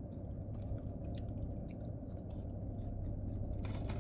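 A person chewing fried chicken gizzards and livers, with scattered faint clicks, over a steady low hum.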